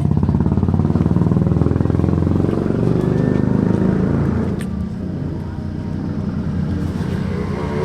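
Motorcycle engine running close by with a fast, even pulse, fading about halfway through and leaving a lower, steadier drone.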